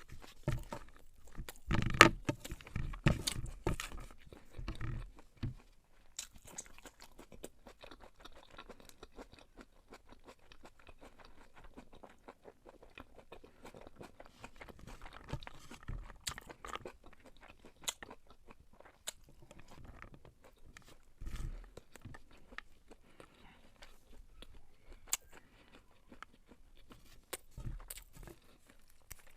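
Close-up mouth sounds of a person chewing and biting beef pilau: wet, clicky chewing with irregular sharp crunches, loudest in a burst about two seconds in.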